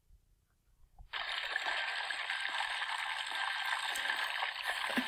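Liquid food colouring pouring from bottles and splashing into a large plastic container, a steady splashing that starts suddenly about a second in.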